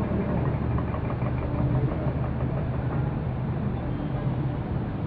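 Steady running noise of a vehicle, mostly low rumble with no distinct events.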